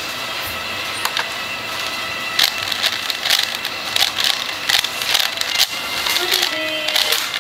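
A plastic 4x4 speedcube (DaYan + MF8) being turned rapidly, a fast irregular clatter of clicking layer turns that starts about two seconds in.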